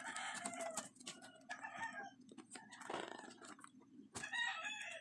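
Chickens clucking and calling several times, mixed with short crackles and ticks of packaging tape being pulled at.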